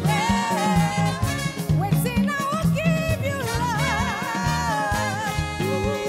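Live gospel praise band playing, with drums, bass, guitar and keyboards, while female singers carry a melody with wavering, sliding held notes.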